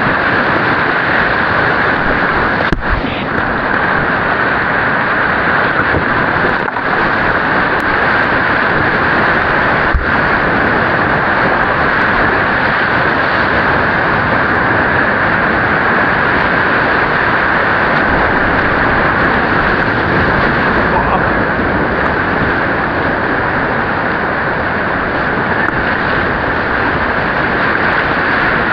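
Whitewater rapids rushing loudly and steadily right around a packraft in a continuous, rocky river, with a few short knocks now and then.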